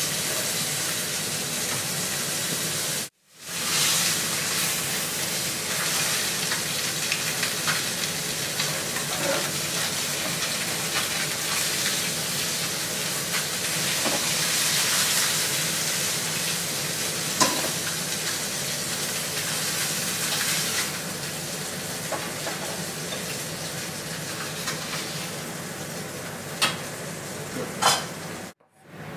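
Food sizzling as it fries in a stainless steel skillet on a gas burner: a steady hiss, with a few sharp clicks in the second half. The sound breaks off briefly twice.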